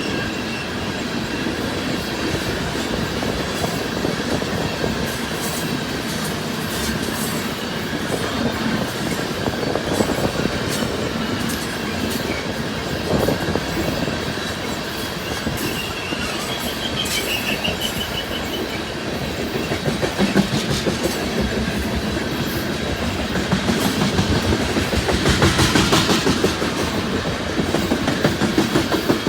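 Loaded coal train cars rolling past, their wheels clicking steadily over the rail joints. A thin, high wheel squeal comes in briefly near the start and again about halfway through.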